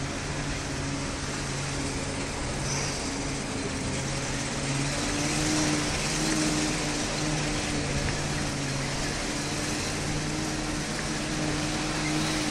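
Willys jeep engine running with a steady drone as it climbs a mountain track, heard from the open back over an even rush of wind and road noise.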